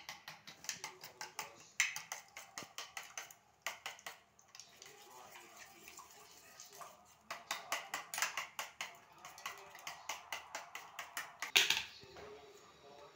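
Spoon beating raw eggs in a small steel bowl: quick rhythmic clinks of metal on metal, about five a second, in runs with a pause in the middle and one louder knock near the end.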